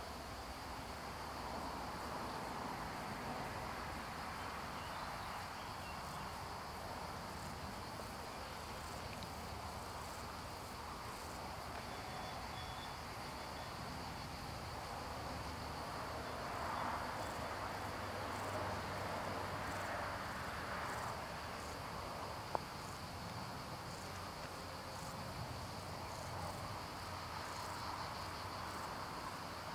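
Insects chirping steadily in a high, even drone over faint outdoor background noise, with a single sharp click about three-quarters of the way through.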